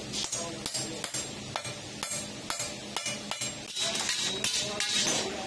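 Hand hammer tapping on a thin steel sheet-metal drum lid: a quick, even run of sharp metallic taps, about three to four a second, some with a brief ringing ping.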